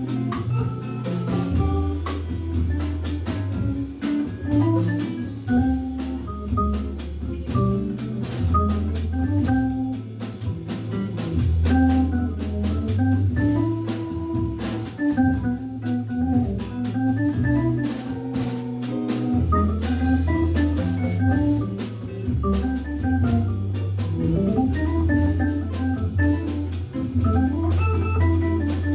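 Jazz organ trio playing: a Hammond B3 organ with held bass notes and a moving melodic line above them, over drums with frequent cymbal and drum strokes.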